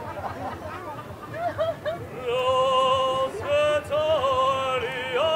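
Operatic singing starting about a second and a half in: a single high voice holds long notes with a wavering vibrato. Crowd murmur underneath.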